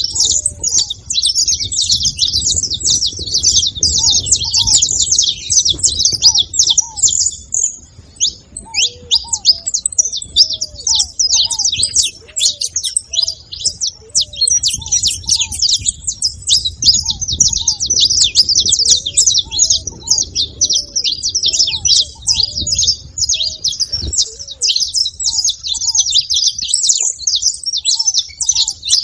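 Several saffron finches chirping and singing at once, a dense, unbroken chatter of quick high-pitched notes.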